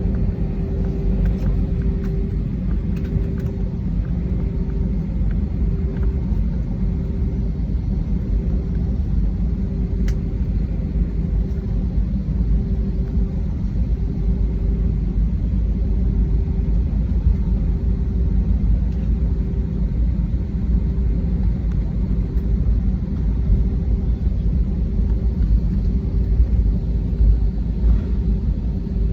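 Airbus A320 jet engines giving a steady low rumble, with a faint hum that pulses about once a second over it.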